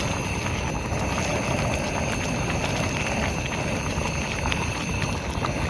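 Pot of pulao cooking on the heat: a steady hiss with faint scattered crackles.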